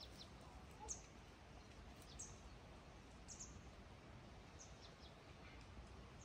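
Near silence with faint, high bird chirps: short falling notes about once a second.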